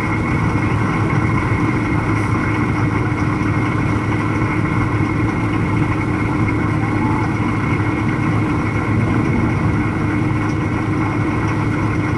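A car driving at a steady speed, heard from inside the cabin: an even drone of engine and tyre noise with a constant hum, unchanging throughout.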